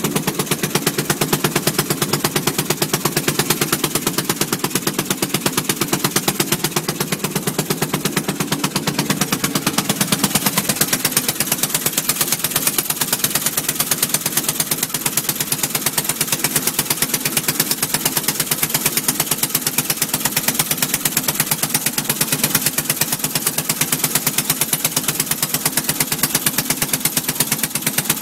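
3 hp Atlantic single-cylinder make-and-break marine engine running at a steady speed, firing in a rapid, even beat.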